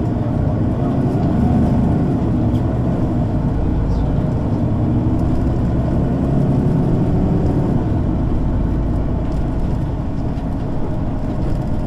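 Mercedes-Benz O 530 G Citaro G articulated bus engine and ZF gearbox running under way, the engine note rising, holding and falling over several seconds, with a change about eight seconds in.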